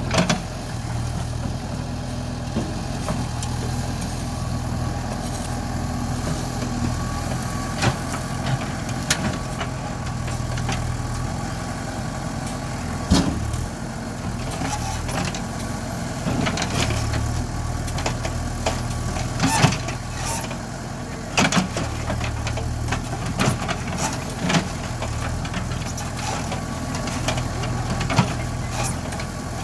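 JCB backhoe loader's diesel engine running steadily while levelling ground, with scattered sharp knocks and clanks over it.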